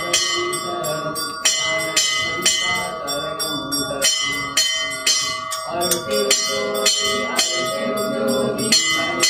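Temple bell rung repeatedly during a Hindu puja, about two strokes a second, its ring carrying on between strokes.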